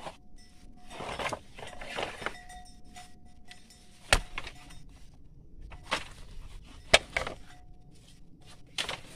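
Rustling of leaves and twigs as someone pushes through leafy undergrowth, with a few sharp clicks or snaps spread through it and a faint steady tone that comes and goes.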